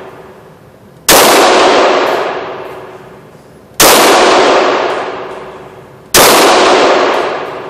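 FN Five-seveN pistol (5.7x28mm) firing three slow, aimed shots about two and a half seconds apart. Each loud crack is followed by a long echo dying away in the enclosed range.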